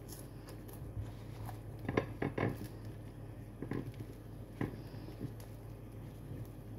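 Faint eating noises: a few short clicks and knocks of chewing and of hands handling toast, a cluster about two seconds in and a couple more a little later, over a low steady hum.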